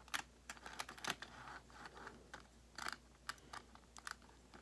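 Faint, irregular clicks and taps of a Bachmann model train engine being handled and set on its track.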